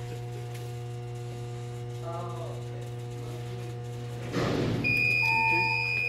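A Siemens Cerberus PRO fire alarm panel's built-in buzzer starts a loud, steady high-pitched tone about five seconds in, signalling an alarm at the panel, and a lower beep pulses on and off alongside it. Before it comes a brief rustle, over a steady low hum throughout.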